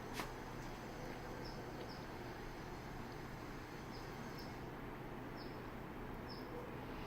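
Outdoor background hum and hiss with a small bird's short, high chirps repeating every second or so, and a single click just after the start.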